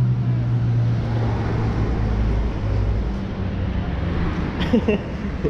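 Car engine running, a steady low hum under a hiss of road or ambient noise, dipping slightly in pitch partway through.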